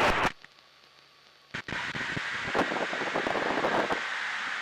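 Aircraft radio in a light-plane headset: after a moment of near silence, the channel opens about a second and a half in on a steady hiss with crackle for about three seconds, then cuts off. It is a garbled, unreadable transmission from other traffic.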